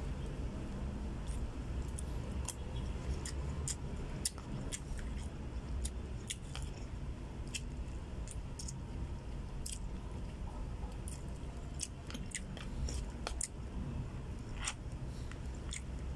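A spoon clicking and scraping against a plastic food container and a person chewing rice and squid, in scattered short clicks over a steady low hum.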